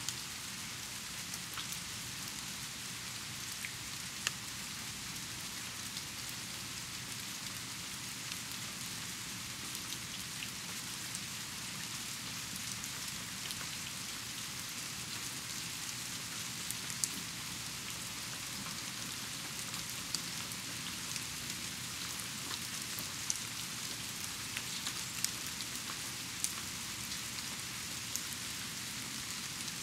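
Steady rain falling, an even hiss with louder single drops ticking every few seconds.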